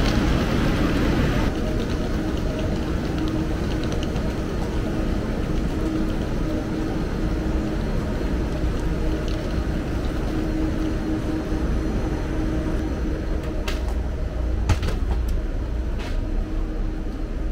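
DB ICE 3 high-speed train heard from inside the carriage: a steady rumble with a low hum, and a few light clicks near the end.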